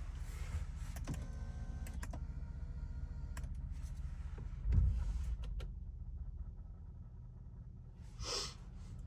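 Car interior sounds: a small electric motor whirring briefly, scattered clicks, and a low thump about halfway through, over a steady low hum. A short hiss comes near the end.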